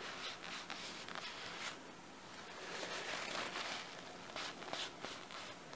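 Wadded-up paper tissue rubbing along a carbon-steel knife blade, wiping off a line of mustard: faint, irregular scratchy rustling strokes.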